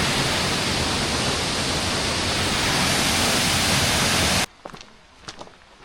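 Waterfall pouring, a loud steady rush of water that cuts off abruptly about four and a half seconds in, followed by a few quiet footsteps.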